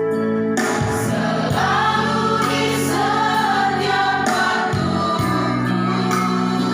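A choir singing a gospel hymn with accompaniment, the voices holding long notes and moving through several chord changes.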